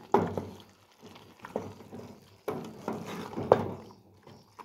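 Wooden spoon stirring beef chunks in tomato sauce in an aluminium pot, in two bouts with a few sharp knocks of the spoon against the pot, the hot sauce sizzling as it is turned.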